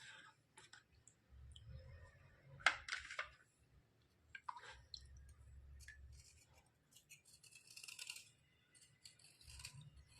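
White slate pencils being handled and scraped: faint scattered clicks and short scratchy scrapes, the loudest about two and a half seconds in.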